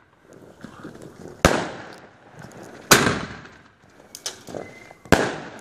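Weco Saphir Premium bombette battery firing: three loud bangs of bombette shots bursting, at uneven intervals, each echoing away, with a few fainter pops between.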